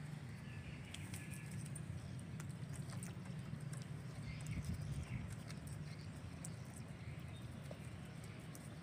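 Domestic pigeons pecking feed pellets from a plastic mug: irregular light clicks and taps of beaks on the grain and the cup. A low steady rumble runs underneath.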